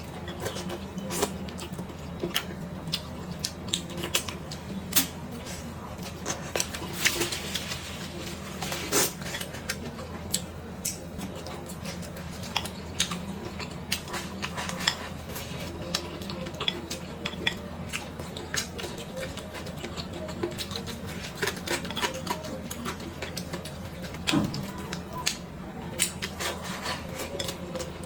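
Eating at a table: chopsticks and spoon clicking and scraping against bowls and plates, with chewing, in many short irregular clicks over a steady low hum.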